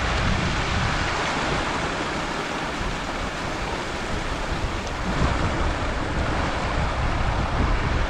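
Steady rush of running water from the creek and its partly frozen waterfall, with an uneven low rumble of wind on the microphone.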